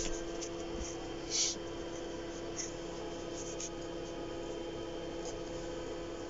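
Small knife cutting and scraping through a pumpkin's rind as a jack-o'-lantern is carved, in a few short scratchy strokes, the clearest about a second and a half in, over a steady low hum.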